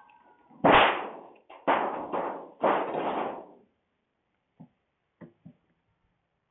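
Metal parts of an AC outdoor condensing unit clanging during scrapping work: three loud crashes in quick succession, each dying away over about a second, then a few light taps.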